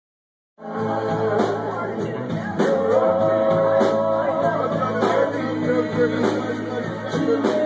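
Live band music with a steady beat, starting abruptly about half a second in.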